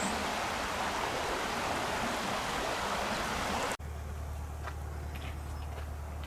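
Rushing mountain stream: an even, steady hiss of running water. About two-thirds in it cuts off abruptly and gives way to a quieter steady low hum with a few faint ticks.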